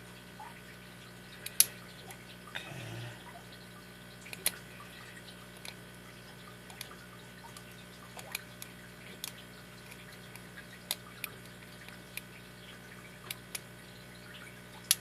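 Lock pick and tension wrench working in the keyway of a brass-bodied five-pin padlock: scattered small metallic clicks and ticks at irregular intervals as the pins are picked, the loudest about a second and a half in.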